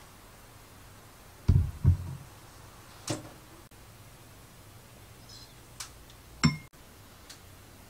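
Kitchen handling knocks as sauce bottles and a wooden spoon are used at a glass mixing bowl: two low knocks about a second and a half in, a lighter click around three seconds, and another sharp knock with a short ring near the end.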